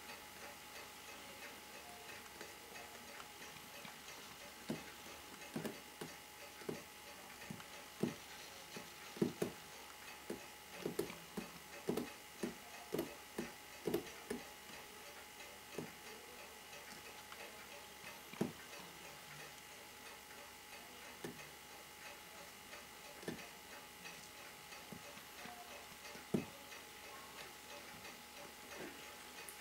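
Faint, irregular small clicks and taps from hand work on a Seiko 6217 watch movement while oil is applied to it with an oiler. The clicks come thickly for a while, then only now and then.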